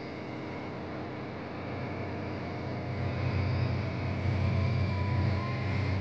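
Steady low rumble that grows louder from about two seconds in.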